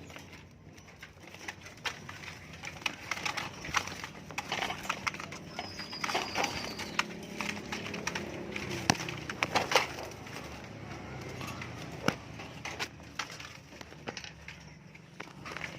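Songbird chirping and calling in short, irregular phrases mixed with many sharp clicks, with one brief high whistled note about six seconds in.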